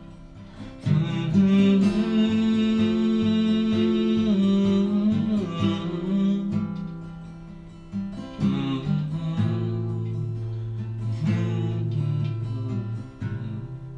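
Acoustic guitar strumming chords and letting them ring, with fresh strums about a second in, around the middle and twice near the end: the instrumental close of the song.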